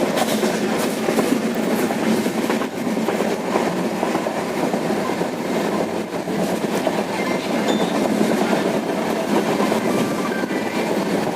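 Moving train: a steady rumble of wheels running on the rails, with faint, irregular clicks over the track.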